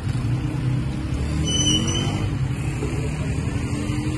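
Steady low rumble of road traffic passing close by, with a brief high-pitched tone about one and a half seconds in.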